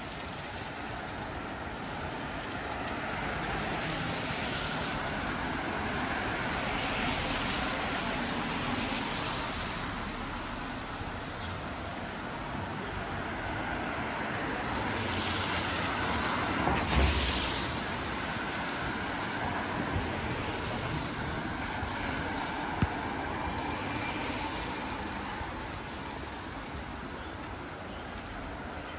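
Cars passing on a wet city street, tyre hiss swelling and fading as each goes by, the closest and loudest a little over halfway through. A single sharp click sounds about three-quarters of the way in.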